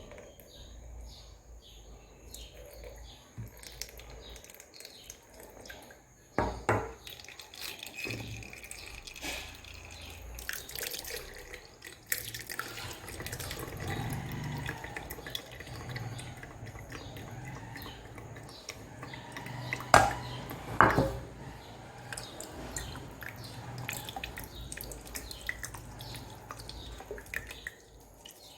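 Water running and dripping, with clinks and knocks of pots and utensils; the loudest knocks come about six seconds in and twice around twenty seconds in.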